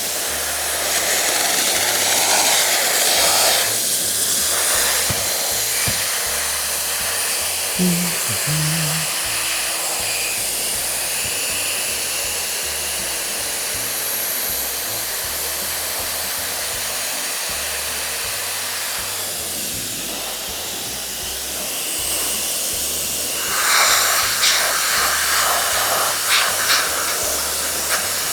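Compressed-air spray gun hissing steadily as contact adhesive is sprayed onto seat foam, with a few short, sharper spurts near the end.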